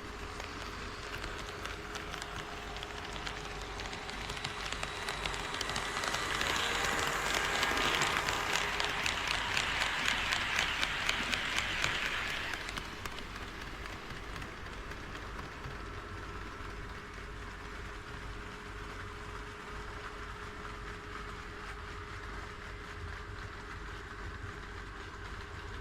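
HO scale model train running past on KATO Unitrack, its wheels clicking rapidly over the rail joints, growing louder, passing close and fading off about halfway through, over a faint steady hum.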